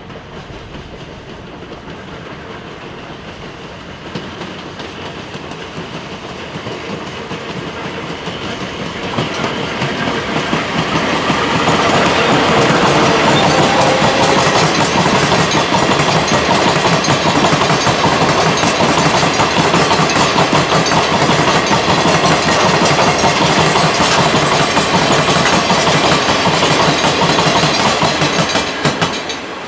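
Freight train of loaded hopper wagons behind the electric locomotive Deki 105, passing close by. The wheels clatter rhythmically over the rail joints, growing louder over the first dozen seconds and dropping away sharply as the last wagon passes near the end.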